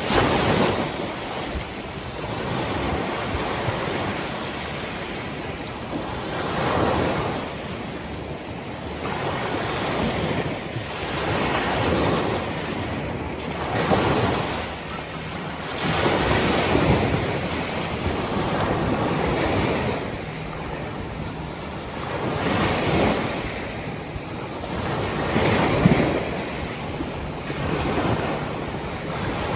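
Ocean waves breaking on a beach, each wave swelling and washing out every two to three seconds, with some wind noise on the microphone.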